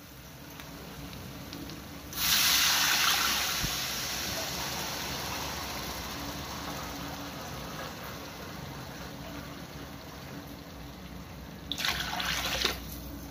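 Water poured into a hot kadhai of frying masala: a loud gushing hiss starts about two seconds in and slowly dies down to a steady sizzle. Near the end the spatula stirs through it briefly.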